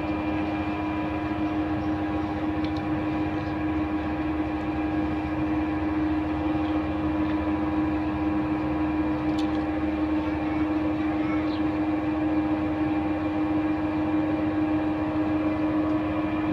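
A steady machine hum: one strong constant tone with several fainter fixed tones above it over a low rumble, and a few faint clicks.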